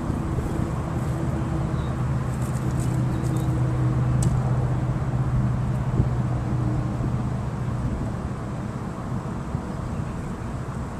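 A motor humming steadily under wind noise, fading out about eight seconds in.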